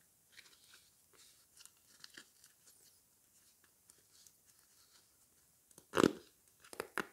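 Paper sticker packet handled with soft rustling and crackling, then torn open: one loud rip about six seconds in, and a second, shorter rip just before the end.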